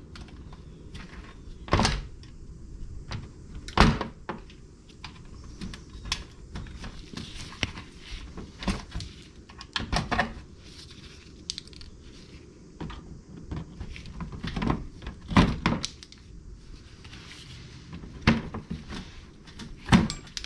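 Plastic push-tab fasteners being pried out of a car's plastic wheel-well liner: irregular clicks, snaps and knocks of plastic and tool. The sharpest knocks come about 2 and 4 seconds in, around 10 and 15 seconds, and twice near the end.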